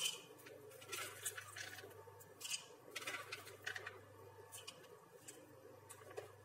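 Fried peanuts, chillies and garlic being spooned from a plastic tub into a blender jar: faint, scattered clicks and rattles of nuts dropping and a spoon knocking against the containers.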